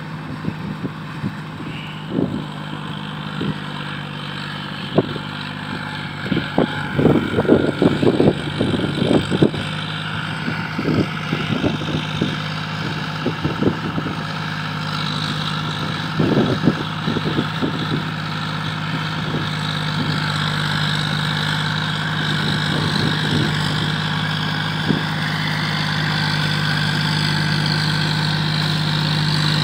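Tractor's diesel engine running steadily under load as it drives cage wheels through a flooded paddy field, growing louder toward the end. Irregular short knocks come through in the middle stretch.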